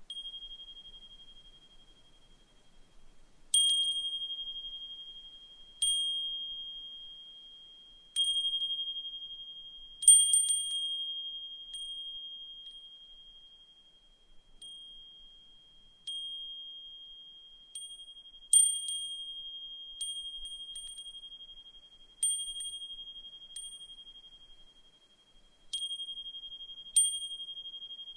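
Brass suzumushi furin (Japanese wind chime) ringing in the breeze. Its single high, clear tone, made to sound like a bell cricket's song, is struck again and again at irregular intervals. Each strike rings on and fades, and a few strikes come in quick succession.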